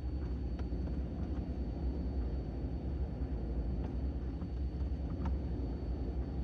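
Steady low rumble inside a car's cabin with the HVAC switched on, with a few faint ticks over it.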